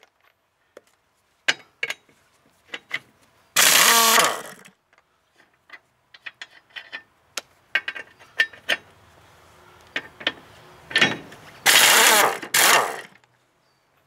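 1-inch-drive AKKO impact wrench (rattle gun) hammering in two short bursts of about a second each, breaking forklift wheel nuts loose. Scattered metal clicks and knocks come between the bursts.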